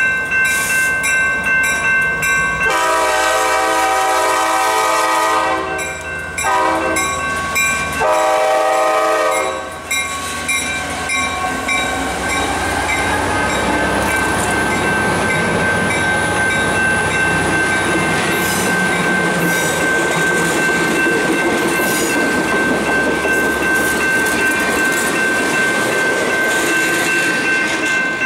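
EMD F59PH diesel-electric passenger locomotive sounding its horn at a grade crossing: a long blast, a short one and another long one. Its passenger cars then roll past with steady wheel and rail noise and clickety-clack. A grade-crossing bell rings throughout.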